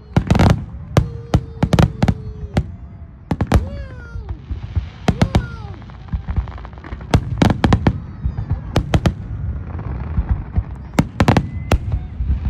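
Aerial fireworks going off in a quick, irregular string of sharp bangs, with patches of crackling between them.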